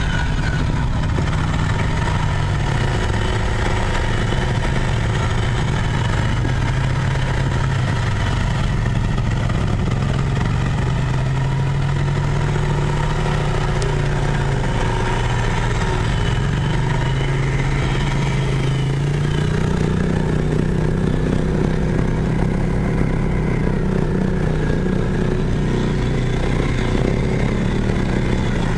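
Mud ATV engine running under way, heard from on board, its pitch rising and falling as the throttle changes, with a rise about two-thirds of the way in.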